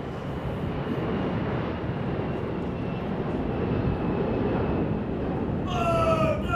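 Jet aircraft passing overhead: a steady, slowly swelling rumble with a faint high whine. Near the end, a high-pitched voice cries out briefly.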